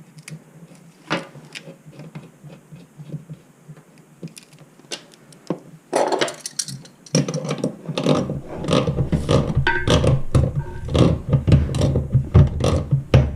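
Handling noise of a toilet supply line being connected to a fill valve: scattered clicks and rattles of the coupling nut and fittings as it is threaded on and hand-tightened. The clatter becomes busier and louder after about six seconds.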